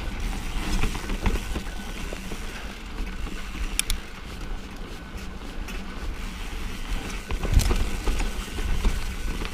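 Mountain bike riding over a rough dirt-and-rock trail: knobby Maxxis tyres rumbling and the bike rattling, with wind on the microphone. Scattered knocks and clicks from the bike, and a loud jolt about seven and a half seconds in.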